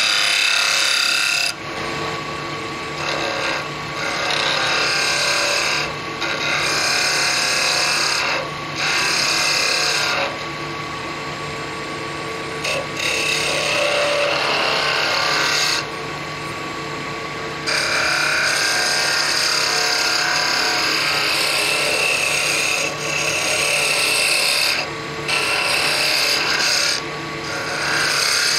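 Wood lathe running with a steady hum while a hand-held turning tool cuts the spinning wooden spindle blank in repeated passes. The cuts are a dry, hissing scrape of steel on wood, in stretches of a second or two, with short breaks where the cutting eases off.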